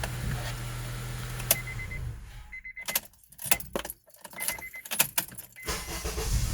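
2011 Honda CR-V's four-cylinder engine idling, then switched off about two seconds in. The ignition key clicks and jangles, and near the end the engine starts again on its new starter and settles into a steady run.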